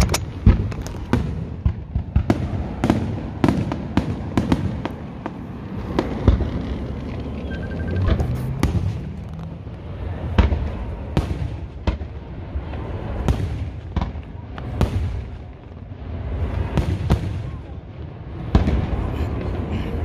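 Aerial fireworks display: a steady run of sharp bangs and crackles as shells burst in quick, irregular succession, with a continuous low rumble between them.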